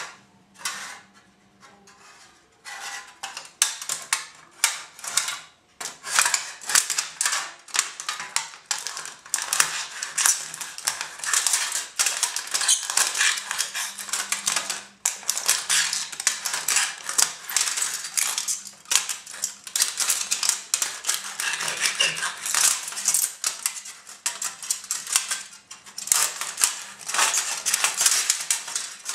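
Steel Will Gekko 1510 knife blade cutting through a thin aluminium beer can on a wooden cutting board: rapid, irregular scraping, crunching and clicking strokes of blade on metal, starting a couple of seconds in and carrying on without let-up.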